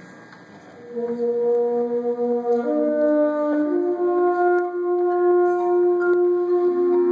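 High school symphonic band of brass and woodwinds comes in about a second in, playing long held chords that climb in slow steps.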